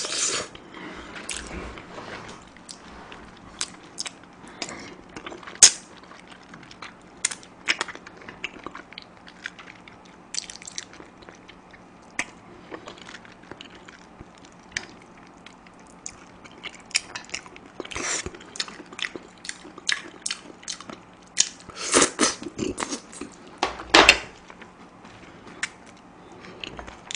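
Close-miked mouth sounds of eating spicy soupy chicken feet: chewing, biting and stripping meat off the small bones, with scattered sharp wet clicks and busier bursts about two-thirds of the way through and near the end, over a faint steady hum.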